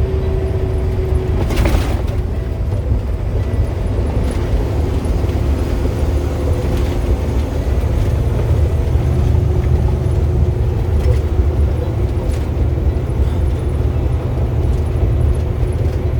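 Semi-truck engine and road noise while driving: a steady low drone. A faint steady tone stops about a second and a half in, followed by a single click.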